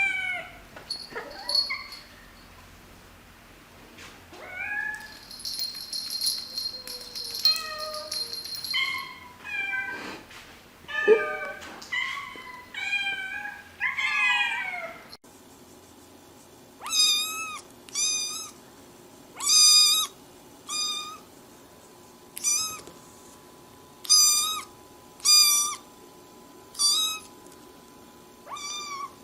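Domestic cats meowing: a string of separate calls of varying pitch. About halfway through it switches abruptly to one high-pitched cat mewing over and over, about ten short calls roughly a second and a half apart.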